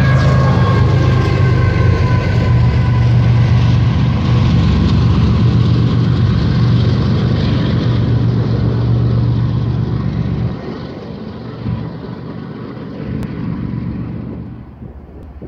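A BNSF diesel locomotive at the rear of a hopper-car freight train passing close by. Its engine runs as a loud steady drone, with faint whining tones falling in pitch as it goes by. The sound drops off sharply about ten seconds in as the train pulls away, leaving quieter rumble and air noise.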